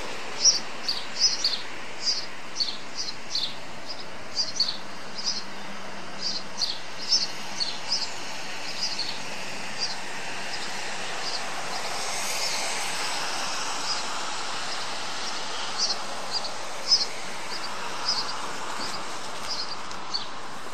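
Small songbird chirping in short, high calls, irregularly spaced and repeated throughout, over a steady outdoor hiss that swells for a few seconds around the middle.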